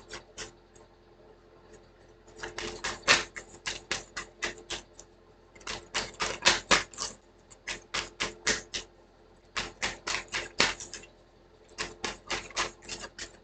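A deck of reading cards being shuffled by hand, giving runs of quick flicking clicks in about five bursts with short pauses between them.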